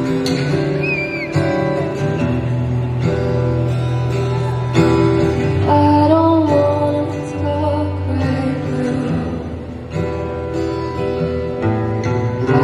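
Live acoustic guitar with a woman singing a slow ballad, played through an arena sound system.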